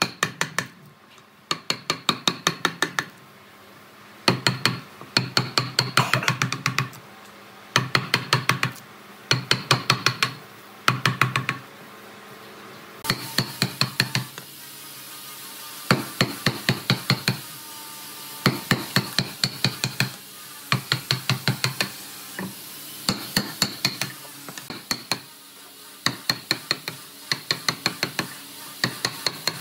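Wood chisel being struck with a mallet to chop chips out of a hardwood table column: quick runs of six to ten sharp taps, with short pauses between runs.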